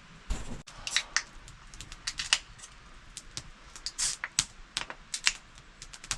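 A quick, irregular series of sharp clicks and snaps, several a second, with a brief low rumbling thump just after the start.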